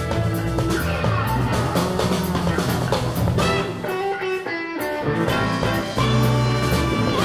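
Live jazz band playing: drum kit keeping time with electric bass and guitar. The bass drops out for a couple of seconds in the middle, then comes back in.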